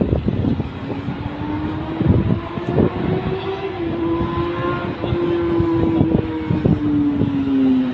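Electric commuter train's traction motors whining as it pulls into the elevated station, the pitch slowly falling from about five seconds in as it slows. Irregular low thumps sound underneath.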